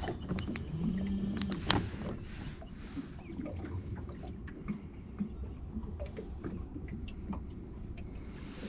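Low rumble of wind and water around a small boat, with scattered light clicks and knocks and a brief low creak about a second in.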